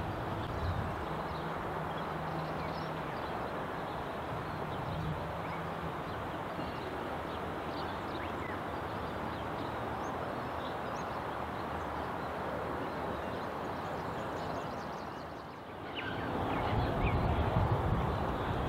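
Outdoor ambience: a steady rush of wind and distant background noise with scattered short bird chirps. There is a brief dip about three-quarters of the way in, after which the rush is louder and the chirps come more often.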